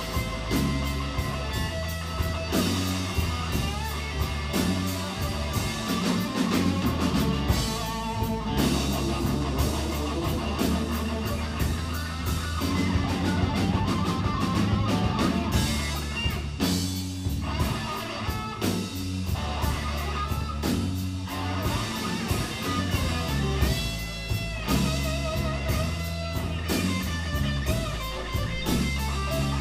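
Live blues band playing an instrumental stretch: electric guitar lead over bass guitar and drum kit, with no vocals.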